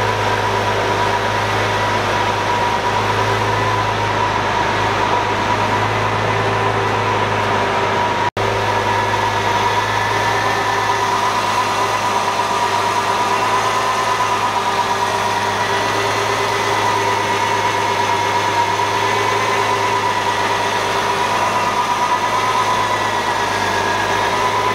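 Lamborghini Centenario's V12 engine idling steadily, with an even whine over the low hum. The sound breaks off for an instant about eight seconds in.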